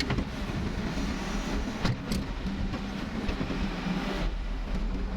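Backhoe's diesel engine running steadily, with a couple of sharp clicks about two seconds in.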